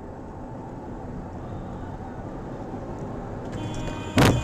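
Steady road and engine noise of a car driving, heard from inside the cabin, broken about four seconds in by one sudden, very loud bang.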